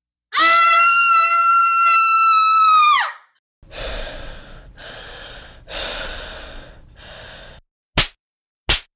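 Meme sound effect: a long, high-pitched held scream that drops off at the end, followed by four loud breathy gasps and then two short clicks.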